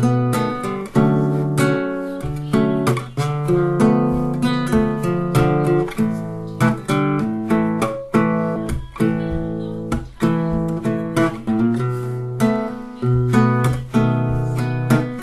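Background music: a strummed acoustic guitar playing chords at a steady rhythm.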